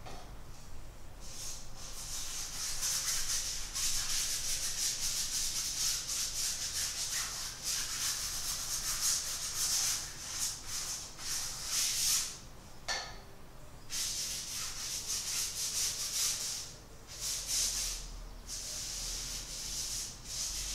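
Paintbrush scrubbing paint onto canvas: a rapid run of rough, scratchy brush strokes, broken by a couple of short pauses.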